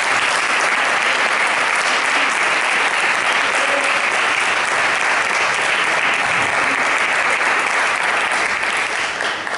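A congregation applauding, a steady patter of many hands clapping that fades away near the end.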